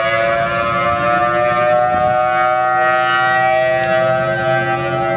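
Federal Signal Thunderbolt 1000AT tornado siren sounding loudly as a chord of several tones. The pitch slowly rises through the first few seconds and then levels off to a steady wail.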